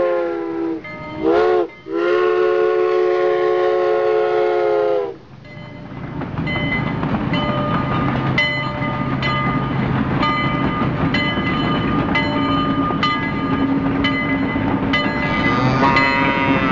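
Train whistle blowing two short toots and then a long blast, followed by a train running with a regular clack, a little more than one beat a second, and the whistle sounding again near the end.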